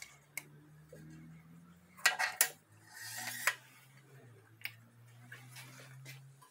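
Metal clinks, knocks and scrapes as the output shaft is worked out of a Ford 6R80 automatic transmission case by hand, a cluster of knocks about two seconds in and a scrape just after, over a faint low hum.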